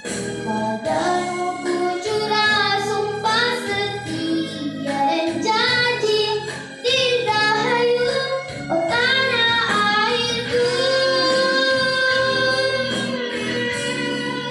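A young girl singing a patriotic song into a microphone over instrumental backing music, her melody rising and falling, then holding one long note over the last few seconds.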